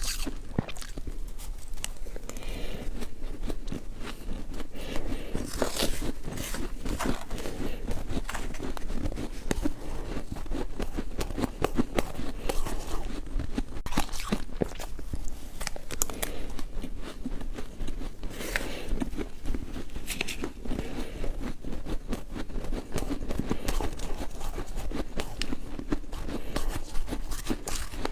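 Ice being bitten and chewed close to the microphone: a steady run of sharp crunches and cracks as the cubes break between the teeth.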